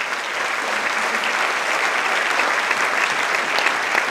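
Large audience applauding steadily, a dense sustained clapping.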